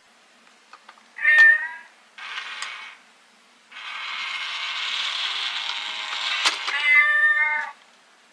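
Tabby cat yowling in a confrontation: a short sharp cry about a second in, a brief raspy cry, then a long raspy yowl of about four seconds that ends in a clearer wail.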